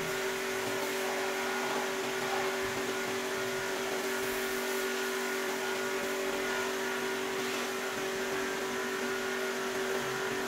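Steady motor hum with a whir, holding a few fixed pitches under a light hiss.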